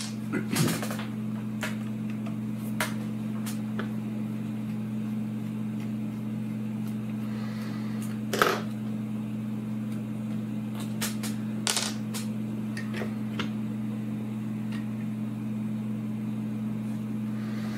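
A handful of sharp clicks and taps, spaced seconds apart, as the screwed-on front housing of a 1948 Bell & Howell Filmo Picture Master 8mm projector is unscrewed and lifted off. A steady low hum runs underneath.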